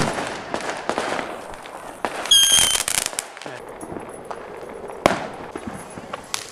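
Consumer fireworks going off: a sharp bang at the start with crackling trailing after it. A short high whistle comes about two seconds in, and a second bang about five seconds in.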